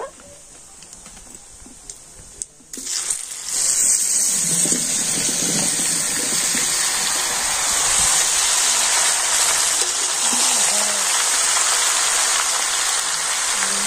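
Ripe jujubes (kul) tipped into hot mustard oil with fried dried red chillies and panch phoron in a wok, setting off a loud, steady sizzle about three and a half seconds in that keeps going.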